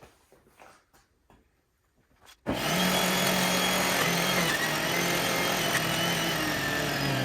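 A few faint clicks, then about two and a half seconds in a NutriBullet centrifugal juicer's motor switches on abruptly and runs loud and steady with a whine, juicing collard greens.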